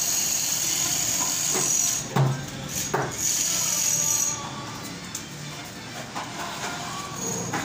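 Plastering tools scraping over fresh wall plaster, a hissing scrape in long strokes broken by two sharp knocks about two and three seconds in.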